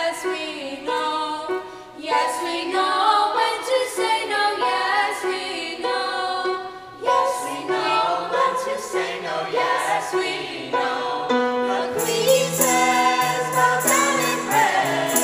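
A choir singing a song with instrumental accompaniment. About twelve seconds in the accompaniment fills out with a steady beat and a repeated high percussive shimmer.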